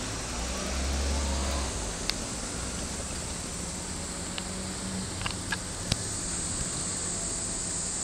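Summer cicadas making a steady high-pitched drone, over a low vehicle rumble that swells about a second in. A few short clicks fall in the middle, the sharpest near the end.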